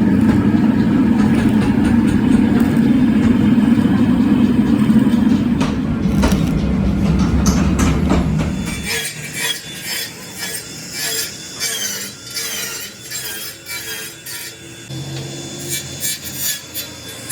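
Heavy workshop machinery running with a loud, steady rumble that cuts off suddenly about nine seconds in. After that come quieter irregular clicks and scraping of metal work, with a thin wavering high whine.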